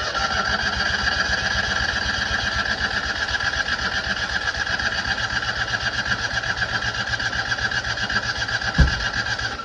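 Citroën 2CV's starter motor cranking its air-cooled flat-twin engine, a steady whine over a fast, even chug, without the engine catching. It begins after a click, with a thump near the end, and stops abruptly.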